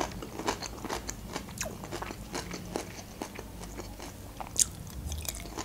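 Close-miked chewing of crisp cucumber slices: many small wet crunches and mouth clicks, with a sharper crunch about four and a half seconds in as another slice is bitten.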